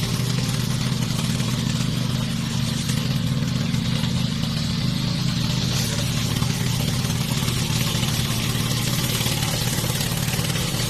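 Remote-controlled lawn mower's engine running steadily, a constant hum with a hiss above it.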